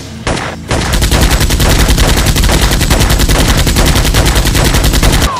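Rapid automatic gunfire sound effect, dubbed over toy blasters being fired. A short burst comes just after the start, then a continuous rapid stream of shots that cuts off suddenly near the end.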